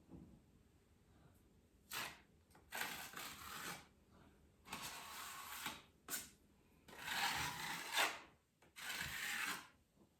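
Wall filler being spread and scraped smooth with a knife over a patched wall crack: six scraping strokes, most about a second long, with short pauses between.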